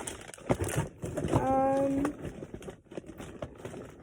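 Silicone dimple fidget toy being popped: a run of small, quick clicks, with a short held hummed note a little past the middle.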